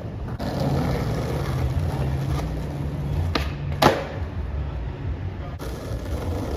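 Skateboard wheels rolling over street asphalt with a steady low rumble, broken by a few clacks of the board and one loud, sharp clack just under four seconds in.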